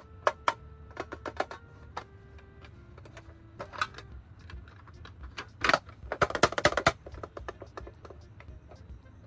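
Hard plastic toy pieces and packaging being handled, giving irregular clicks and taps, with a dense run of loud clicks from about five and a half to seven seconds in. Faint steady tones step down in pitch under the first few seconds.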